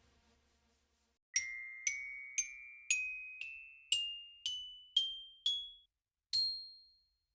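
An ascending run of ten bright, bell-like struck notes, about two a second, each ringing out briefly; the last note is a jump higher and rings longest. It starts about a second and a half in.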